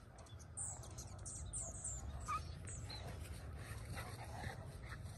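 A Great Pyrenees and a cocker spaniel puppy play-wrestling on grass: scuffling and small dog sounds, with a short squeak about two seconds in. A few short high chirps sound in the first two seconds.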